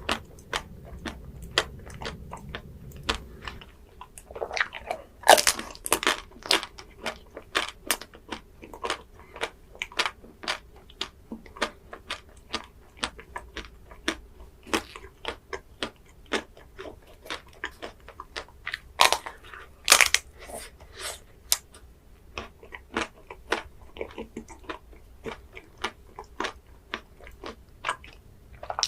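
Close-miked mukbang eating of ice cream: steady biting and chewing with crisp crunches and wet mouth clicks, several a second, and a few louder crunching bites.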